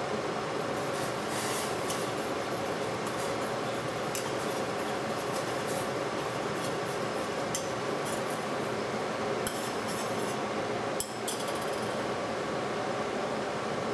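Metal spoon stirring sauce in a stainless steel saucepan, scraping and clinking against the pan in many short taps, with a louder clack about eleven seconds in. A steady background hum runs underneath.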